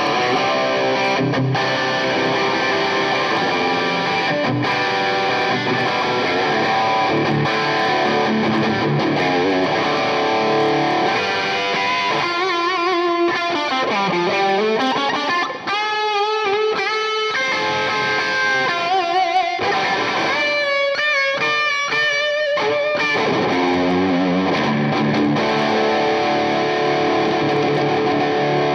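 Tokai Love Rock LS136F Les Paul-style electric guitar with PAF-style humbuckers, played through an overdriven amp: chords and riffs, with a lead passage in the middle, roughly halfway through, of single notes carrying pitch bends and vibrato, before the riffing comes back near the end.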